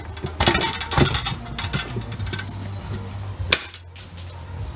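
Hand tools clinking and knocking against metal parts while a machine is taken apart for scrap, with a sharp knock about three and a half seconds in, over a steady low hum.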